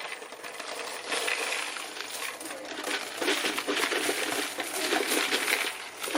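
A large mass of collected vending-machine quarters clinking and jingling against each other continuously, getting busier from about three seconds in.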